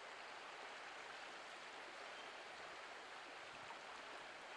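Faint, steady rush of a river flowing, an even hiss with no distinct events.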